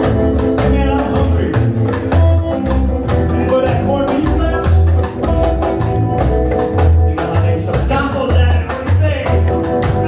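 Live rockabilly band playing: an upright double bass pulsing out a walking bass line, a small drum kit keeping the beat, and a hollow-body electric guitar on top.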